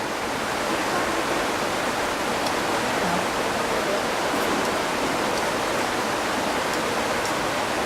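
Waterfall rushing steadily just below, a constant loud roar of falling water, with a few faint light ticks over it.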